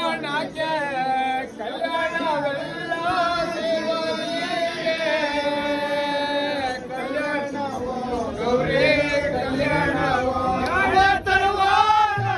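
Devotional singing with music: voices singing a melodic, chant-like line, with held notes in the middle. A low, pulsing beat comes in near the end.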